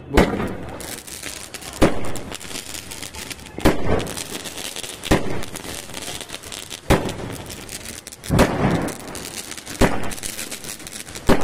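Cock brand sky shot firework firing its shots one after another: about eight sharp bangs, roughly one every one and a half to two seconds, each trailed by a hiss of sparks.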